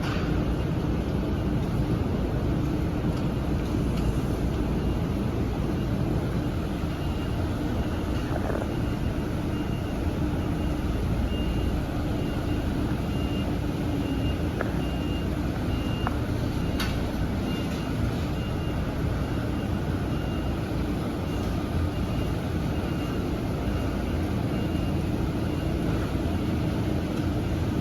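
Steady machine running with a low hum, and a high electronic warning beep repeating at an even pace, like a vehicle's reversing alarm.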